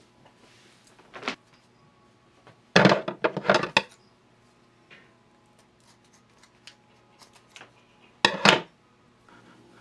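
Raw 6 mm hemp rope being worked by hand, pulled through the fist, as part of treating new rope. It gives short loud rubbing bursts: one about a second in, a dense run between about three and four seconds, and another near eight and a half seconds.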